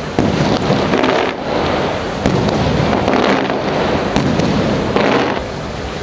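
Fireworks going off: a run of sharp bangs and crackling over an echoing rumble, in two spells, one about a second long and the next about three seconds long.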